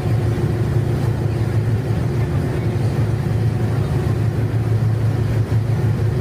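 Motor ship's engine running with a steady low drone and a constant hiss over it.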